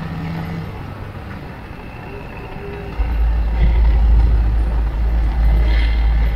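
Road noise of a 200cc motorcycle ride in traffic, with a lorry alongside. About three seconds in, a loud low wind rumble on the bike-mounted microphone sets in and stays.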